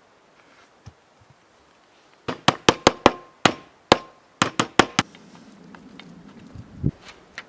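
Hammer driving nails into wood: a quick run of about a dozen sharp blows, some with a brief metallic ring, then a single dull thump near the end.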